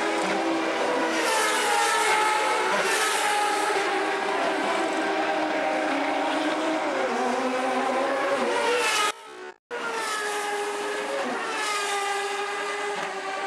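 Turbocharged V8 engines of CART Indy cars running at race speed, one car after another, each one's pitch sliding down as it goes by. After about nine seconds the sound cuts out for a split second at an edit, then the passing engines carry on.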